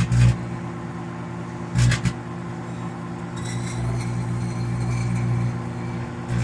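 Microwave oven running with its steady electrical hum while plasma from burning cardboard buzzes and crackles inside, with two short, louder buzzes, one just after the start and one about two seconds in.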